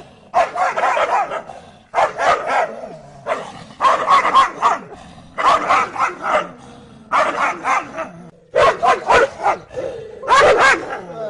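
Dogs barking furiously at each other through a metal gate, in about seven rapid volleys.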